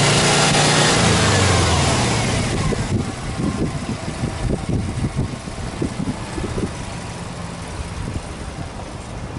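Subaru Impreza WRX STi's turbocharged flat-four boxer engine: its revs fall away from a free rev over the first two and a half seconds, then it settles into an uneven, burbling idle that steadies near the end.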